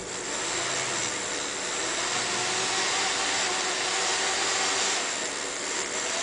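Small electric motor of a fischertechnik monorail carriage spinning its propeller, a steady whir under pulse-width-modulated power.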